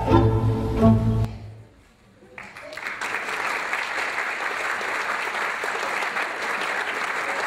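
Instrumental music ends about a second in. After a brief hush, the audience breaks into steady applause.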